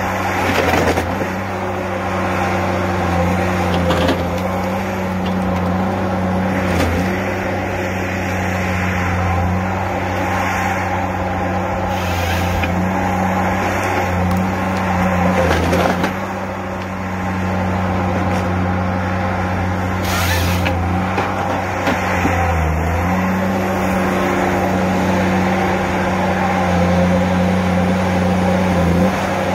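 Tigercat H822C tracked harvester's diesel engine running steadily under hydraulic load while its Logmax 7000XT head processes a pine stem. The engine note dips in pitch briefly twice, and several short noisy bursts from the working head stand out over it.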